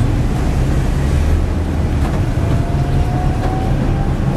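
Tram running, heard from inside the passenger car: a steady low rumble, with a faint whine rising slightly past the middle.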